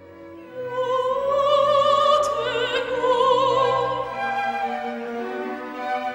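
A woman's classical solo singing voice with strong vibrato, held notes rising in pitch, over a string accompaniment, in a baroque oratorio.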